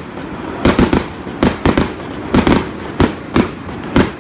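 Fireworks bursting overhead: a quick, irregular string of sharp bangs, about a dozen in four seconds, often two or three close together.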